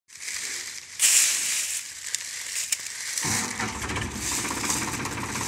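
A crackling hiss, loudest about a second in. About three seconds in, an engine starts suddenly and keeps running steadily, the power for a tractor-mounted chaff cutter.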